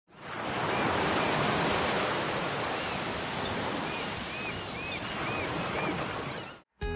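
Ocean surf washing steadily ashore, fading in at the start and cutting off suddenly near the end. A bird gives a short series of chirps about four seconds in.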